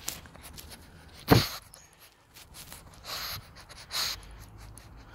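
A pug puppy breathing noisily through its nose right against the phone: one sharp nasal burst about a second in, then two breathy puffs near three and four seconds. There are small rubbing clicks as its face brushes the phone.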